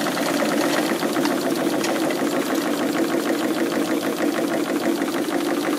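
Bolton 9 triple expansion model steam engine running on steam, just started, with a rapid, even mechanical clatter. Its valve timing is slightly out, which the builder says gives some irregularity of motion.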